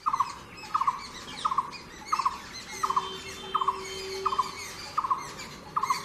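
Blue-throated barbet calling: a short rolling call repeated evenly about every 0.7 seconds, nine times, with fainter chirps of other birds above it.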